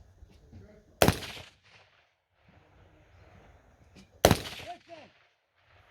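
Two gunshots about three seconds apart, each a sharp crack followed by a short echo trailing off.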